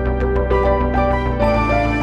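Background music: melodic instrumental notes over a steady bass, with a change of chord about one and a half seconds in.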